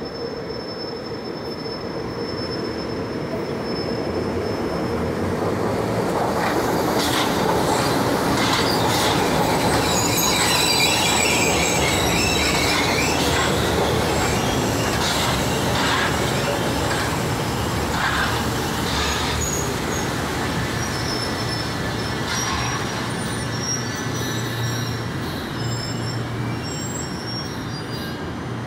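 São Paulo Metro Line 1-Blue train running past on elevated track. Its rolling noise swells to a peak about ten seconds in and then slowly fades. High-pitched wheel squeals come and go, with sharp clacks as it passes.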